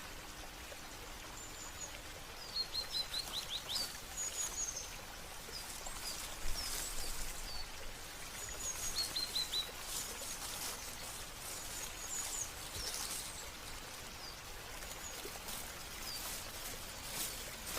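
Small songbirds chirping in short runs of quick falling notes, over a steady hiss of running water.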